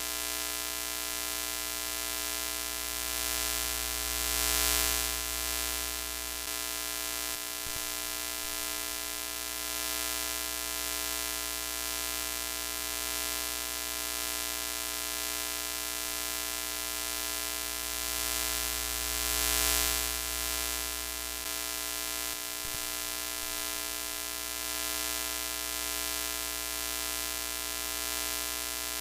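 Broken-TV sound effect: steady hissing static over a continuous electrical buzz, swelling louder twice, about fifteen seconds apart.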